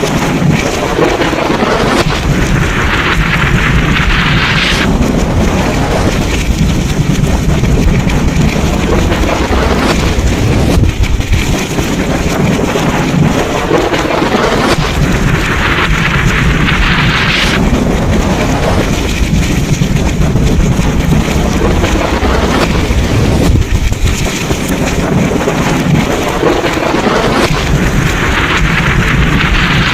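Thunderstorm: steady heavy rain over a continuous low rumble of thunder. The hiss of the rain swells louder three times, about every thirteen seconds.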